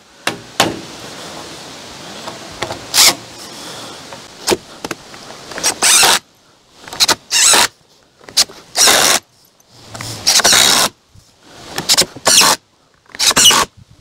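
Cordless drill driving screws into 2x4 lumber in a run of short bursts, each under a second, with brief pauses between.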